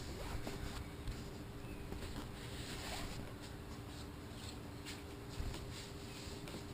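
Hands rubbing and pressing headliner fabric onto the glued headliner board: soft, irregular brushing and scratching swishes over a faint steady hum.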